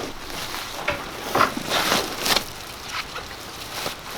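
Irregular rustling and scuffing in loose bedding as the calf is moved along, with a few louder crunchy scuffs near the middle.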